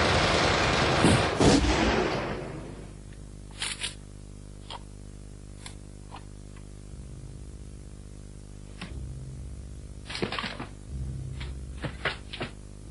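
A loud explosion-like roar with two sharp cracks in it, dying away over the first couple of seconds. Then scattered sharp cracks and knocks, a few of them bunched together near the end, over a low steady hum.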